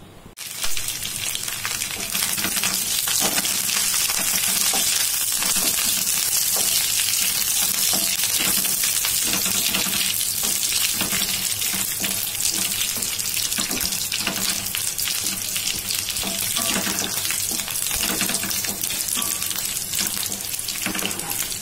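Green chillies and curry leaves sizzling in hot oil, a steady hiss full of fine crackles and spatters. It starts abruptly about half a second in and keeps going at full strength.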